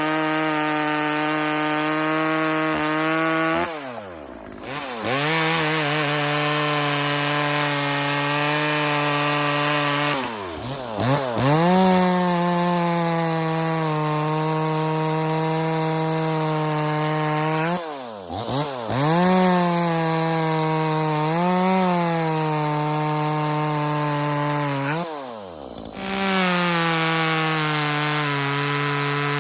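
A 40 cc two-stroke 420ES chainsaw, a Chinese clone of the Echo CS-400, running at full throttle through test cuts in wood. Its pitch drops and climbs back sharply four times as the throttle is let off and squeezed again between cuts.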